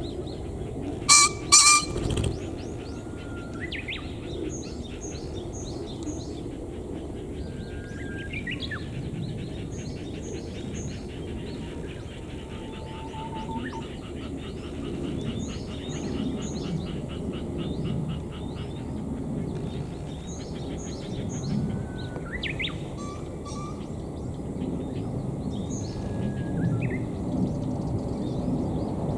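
Male green pheasant giving its loud two-note crow about a second in, followed at once by a brief low whirr of wing-beating, the horo-uchi display. Other small birds chirp and whistle faintly through the rest.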